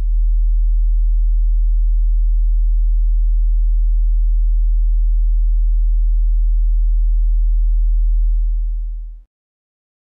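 A steady 40 Hz low-frequency sine test tone, a pure deep hum that fades out about nine seconds in.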